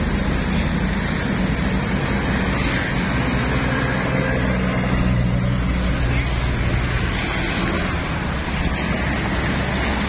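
Road traffic dominated by heavy diesel trucks passing close by, with a steady rumble of engines and tyres. The low engine note swells about halfway through as a container tractor-trailer goes past.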